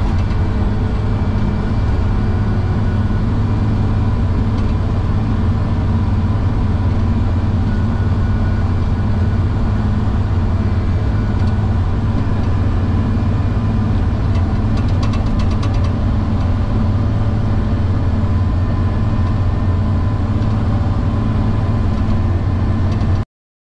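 Caterpillar D7R LGP bulldozer's diesel engine running steadily, heard from inside the cab as the dozer pushes snow. It is a continuous low drone that cuts off suddenly near the end.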